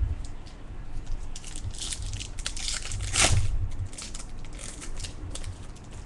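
Crinkling and crackling of a trading-card pack wrapper being torn open and handled, in an uneven run of crackles that is loudest about halfway through.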